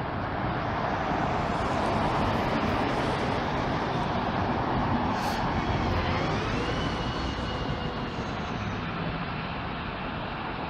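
City buses running past on the bus lane: steady engine and tyre noise, with a faint rising whine about six seconds in as an articulated bus approaches.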